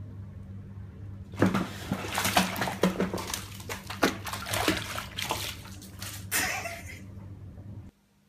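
Water splashing and sloshing in irregular sharp bursts, over a steady low hum that cuts off abruptly near the end.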